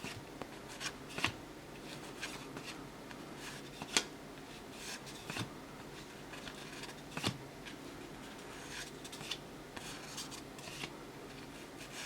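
1984-85 O-Pee-Chee cardboard hockey cards being handled and flipped through by hand. Soft sliding and rubbing of card against card, with sharp little clicks here and there, the loudest about four and seven seconds in.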